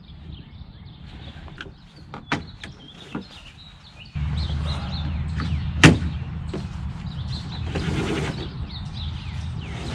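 Sail being hoisted on a small sailing kayak: the halyard running through the freshly lubricated masthead block and small stainless block, with scattered clicks and knocks of the rigging. About four seconds in a steady low rumble sets in, and a single loud sharp knock comes near six seconds.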